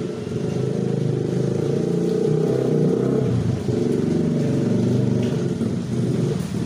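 Motor vehicle engine running close by. It grows louder over the first couple of seconds, then holds steady.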